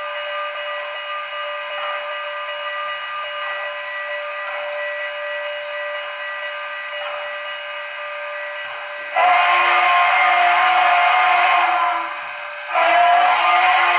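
Sound decoders in HO-scale Southern Pacific cab-forward model steam locomotives play idle sounds through small speakers: a steady steam hiss with faint steady tones. About nine seconds in, a loud steam whistle chord blows for about three seconds. It sounds again after a short pause.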